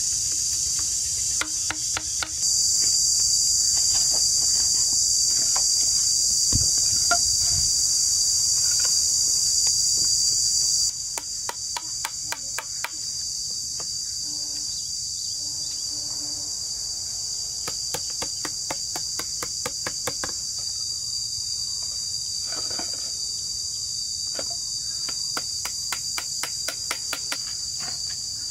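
Loud, steady, high-pitched chorus of insects that gets louder a couple of seconds in and drops back partway through. Scattered sharp knocks and taps of bamboo being chiselled and handled run through it.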